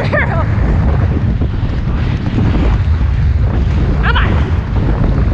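Wind buffeting the microphone, a steady low rumble. Two brief high wavering calls cut through it, one right at the start and one about four seconds in.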